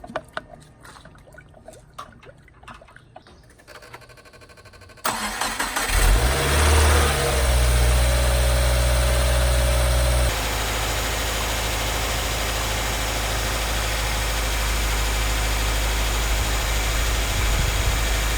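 2015 Subaru WRX's turbocharged 2.0-litre flat-four engine cranked by the starter and catching about five seconds in, after a few light clicks. It flares briefly, settles into a fast idle, then steps down to a lower, steady idle a little after ten seconds.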